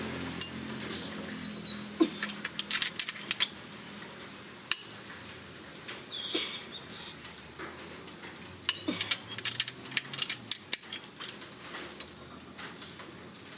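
Metal parts and tools clinking and tapping in two flurries of quick sharp clicks, one a couple of seconds in and another past the middle, with a few short high chirps between them.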